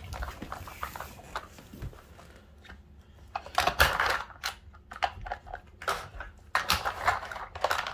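A Cane Corso nosing and pawing at an Outward Hound Nina Ottosson Dog Brick plastic treat puzzle, giving scattered clicks and knocks from the plastic covers and tray. Louder scuffling bursts come about halfway through and again near the end.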